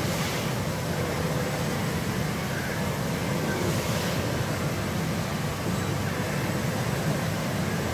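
Steady, dense din of a pachinko parlour: many machines running at once blend into an even roar, with a brief hiss near the start and again about four seconds in.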